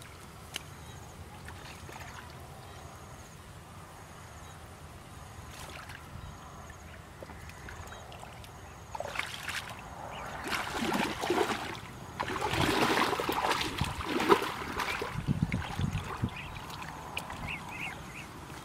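Shallow muddy water splashing and sloshing as a person wades and gropes in it with her hands, quiet at first and louder and choppier through the second half.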